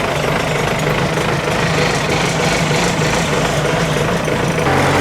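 Excavator's diesel engine idling steadily.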